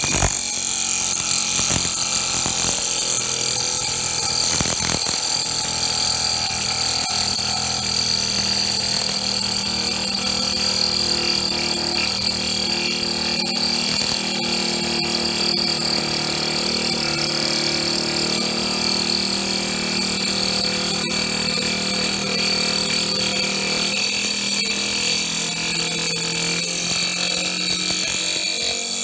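Slitting saw on a small CNC milling machine turning and cutting steadily into a metal block, a high whine over the low steady hum of the machine's motors. The low tone drops in pitch about 25 seconds in.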